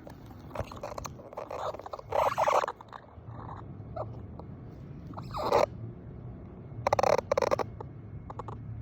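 A Chihuahua's bottom rubbing and squeaking against a surface, making fart-like noises that are not a fart. There are several short bursts, the loudest about two seconds in, halfway through, and around seven seconds in.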